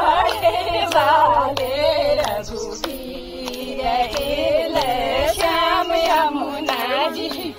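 Women singing a Kumaoni devotional folk song, the melody wavering over a steady held tone with a regular beat beneath.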